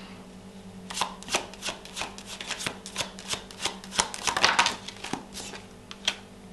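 A deck of tarot cards being shuffled by hand: a quick run of sharp card snaps and flicks starting about a second in, busiest past the middle.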